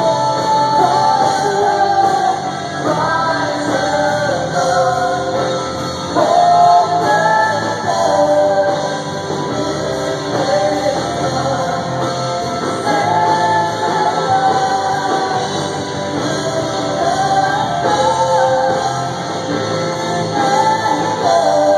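Live worship band playing and singing a hymn chorus, several voices singing together over guitars and band accompaniment.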